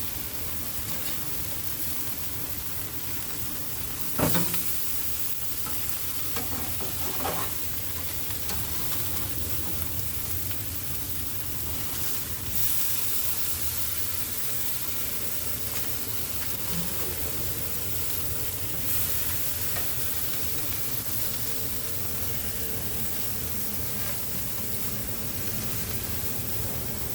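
Food sizzling on a grill, a steady hiss, with a sharp knock about four seconds in and a smaller one a few seconds later.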